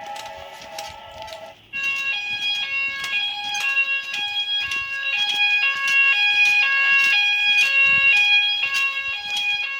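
Electronic fire alarm sounding: after a lower tone for the first second and a half, the alarm starts suddenly and rings on in a repeating pattern of alternating pitches over one steady tone, with regular clicks.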